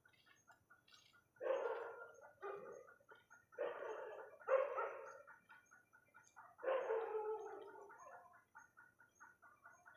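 A few short animal calls, five in all, over a faint regular ticking.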